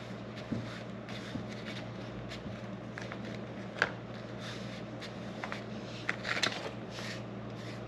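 Carbon fiber vinyl wrap film being handled and peeled from its backing: scattered light crinkles and ticks, a sharper one about four seconds in and a short flurry a little past six seconds.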